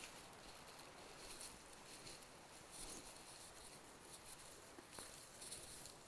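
Near silence: faint rustling and scattered small clicks from clothing and hand movement against a wired earphone microphone, over quiet forest ambience.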